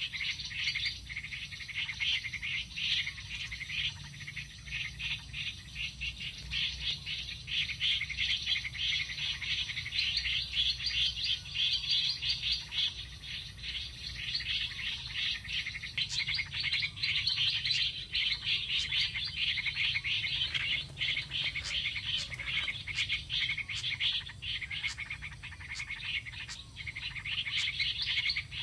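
Small birds chirping and chattering in a dense, unbroken stream of quick high notes.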